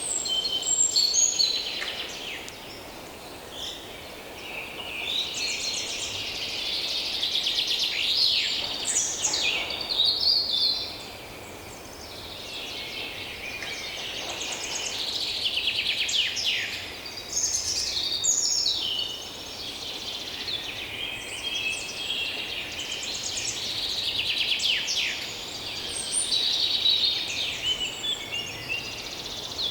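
A chorus of many small songbirds singing and calling at once, with overlapping trills, chirps and quick downward-sweeping notes, over a faint steady background hiss.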